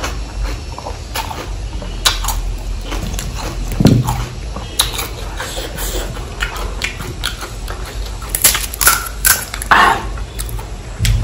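Close-miked chewing and crunching of pani puri: crisp puri shells cracking between the teeth, with irregular clicks throughout and a run of louder crunches near the end.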